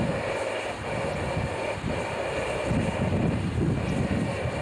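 Narrow-gauge steam locomotive standing with steam blowing off from the top of its cab: a steady hiss with an uneven low rumble beneath.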